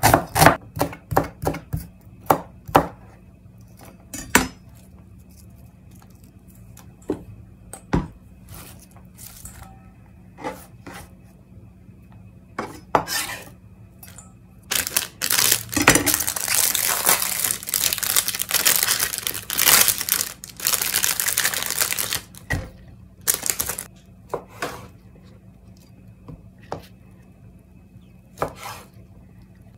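Kitchen knife chopping onion on a plastic cutting board, quick strokes at about three to four a second for the first few seconds, then scattered single knocks. Midway comes a long stretch of rustling and clattering as cut vegetables are handled in a stainless steel bowl, and near the end a few knife cuts through chikuwa on the board.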